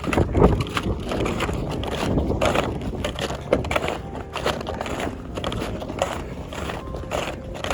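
Footsteps crunching in snow, about one step a second, on a steady climb.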